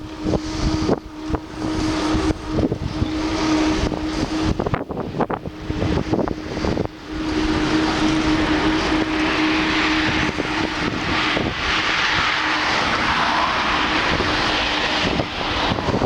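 Wind buffeting the microphone and the rush of a moving car, with a steady low drone that fades out about two-thirds of the way through.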